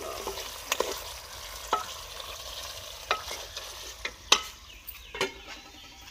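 Wooden spoon stirring a thick tinda (round gourd) curry in an aluminium pot over a soft sizzle, with about five sharp knocks of the spoon against the pot. A lid is set on the pot near the end.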